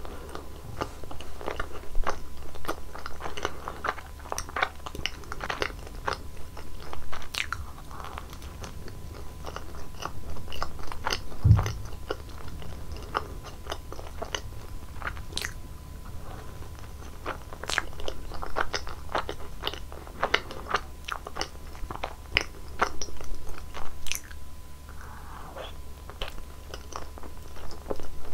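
Close-miked crunchy biting and chewing of Nutella-filled crepe rolls, with many short crisp crackles, over a steady low hum. There is one low thump about halfway through.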